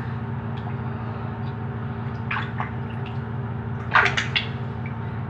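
Tap water running into a bathroom sink over a steady hum, with two short rustling bursts, about two and a half and four seconds in.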